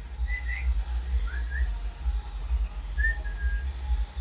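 A few short, clear whistled notes, some gliding upward and one held briefly near the end, over a steady low rumble.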